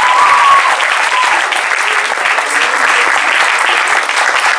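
Audience applauding steadily: a large crowd clapping continuously.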